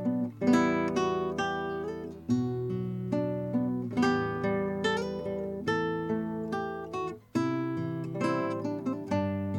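Kodaira AST 100S Japanese classical guitar played for a sound test: plucked chords ringing out and fading, a new chord about every two seconds.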